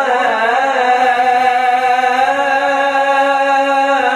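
A man chanting an Islamic devotional hymn (ibtihal) unaccompanied: a melismatic run at the start settles into one long held note, and the pitch steps down near the end.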